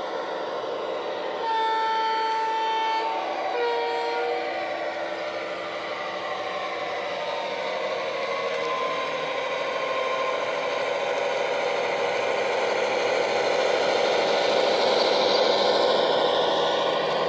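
Model Irish A Class diesel locomotive's DCC sound through a single EM1 speaker: a two-tone horn, a longer higher note followed by a short lower one, then the diesel engine sound running and growing louder as the loco approaches and passes, loudest near the end.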